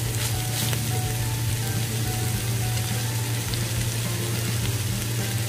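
Julienned carrots, long beans and minced chicken sizzling in a hot pan over high heat, a steady hiss, over a low steady hum.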